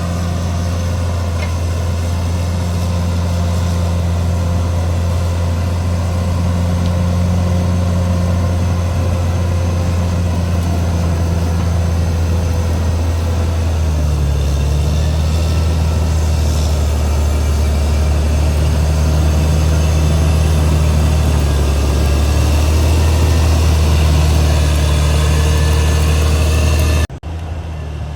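CAT D6R XL bulldozer's diesel engine running with a steady low drone. Its note shifts slightly about halfway through, and the level drops suddenly about a second before the end.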